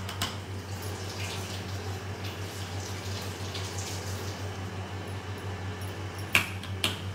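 A metal spoon scraping soft, wet custard apple pulp and dropping it into a glass bowl of curd, with small scattered scrapes and squelches and two sharp clinks of the spoon near the end, over a steady low hum.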